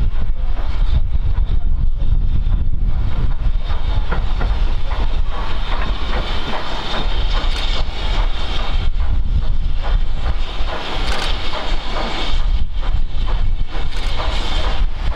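BR Standard Class 4 4-6-0 steam locomotive 75014 running slowly into a station with its coaches, wheels clicking over the rail joints and steam hissing. Wind rumbles on the microphone underneath.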